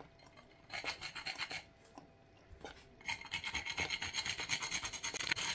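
Whole nutmeg being grated on a small metal hand grater: quick repeated scraping strokes, a short bout about a second in, then a longer, louder run from about three seconds in.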